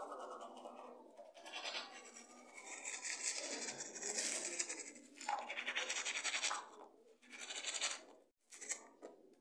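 Manual toothbrush scrubbing back and forth over teeth through toothpaste foam, faint, in bursts of a second or so with brief pauses between them.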